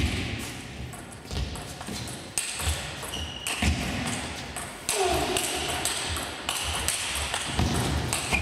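Table tennis rally: the ball clicks sharply off rackets and table over and over, with a few short shoe squeaks on the court floor.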